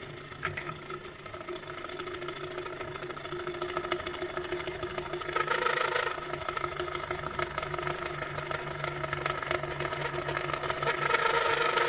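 Small 24-volt motor of a converted toy mini-lathe running slowly on 1.5 volts, turning an iron rod under the cutting tool: a steady low hum with a faint rattle, growing louder and noisier for a moment about five seconds in and again near the end.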